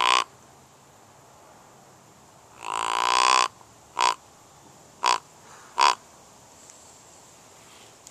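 Deer grunt call blown by mouth: the tail of one grunt right at the start, a longer grunt about three seconds in, then three short grunts about a second apart.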